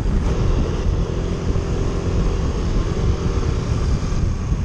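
A vehicle's engine running steadily on the move, a low hum with heavy wind rumble on the microphone.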